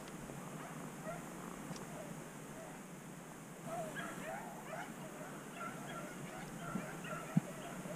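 A pack of rabbit hounds baying and yipping in the distance, their voices growing busier about halfway through. A single sharp knock comes near the end.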